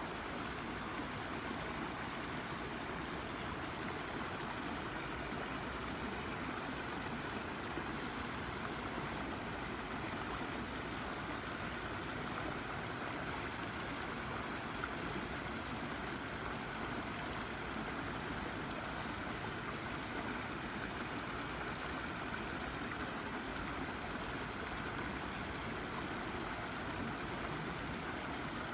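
A shallow brook babbling steadily as water flows over and around a rock, an even rushing trickle with no pauses.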